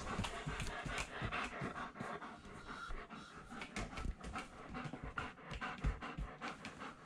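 Black German Shepherd panting close up, rapid breaths in a steady run, with a few low thumps.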